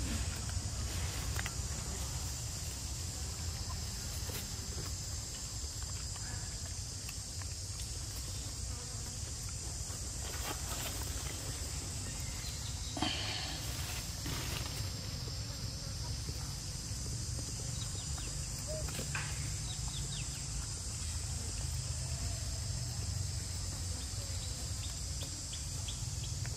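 Steady high-pitched drone of insects calling in the forest, with a low rumble underneath and a few short clicks and rustles near the middle.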